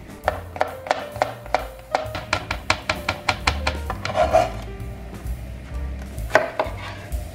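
Chef's knife chopping vegetables on a plastic cutting board: a quick run of sharp chops for about four seconds, then a couple of single chops near the end.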